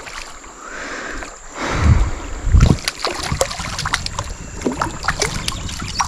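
Light splashing and sloshing of river water as a hooked turtle struggles at the surface beside the boat, with many scattered small clicks and two low thumps about two seconds in.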